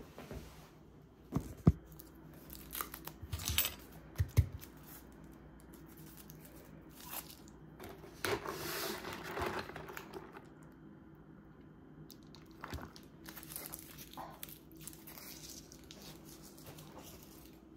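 Quiet household handling noises: a few sharp clicks and knocks in the first few seconds, then, about eight seconds in, a couple of seconds of rattling and scraping as a straw stirs ice in a plastic cup of iced latte, followed by small scattered handling sounds.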